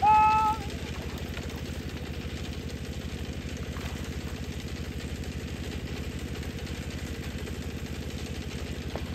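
A small engine running steadily with a rapid, even low pulse. A short, loud electronic beep sounds right at the start.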